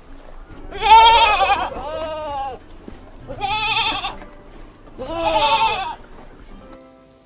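Farm animal bleating: three long, quavering bleats about a second and a half apart, the first the loudest.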